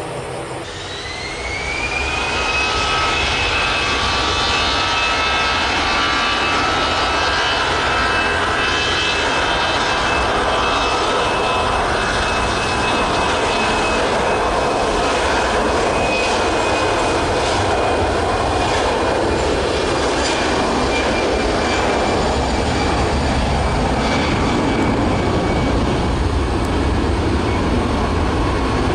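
Airbus A320-200 jet engines spooling up to takeoff thrust: a whine rises in pitch and the sound grows louder over the first two seconds, as the airliner begins its takeoff roll. The engines then run loud and steady at full power, with the whine holding.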